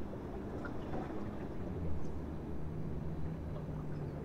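Low, steady hum of a boat's engine, its pitch drifting slowly down.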